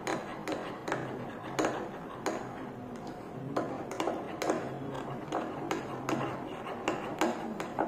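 Metal spoon stirring a thick soap paste in a glass, clinking and scraping against the glass irregularly, about twice a second.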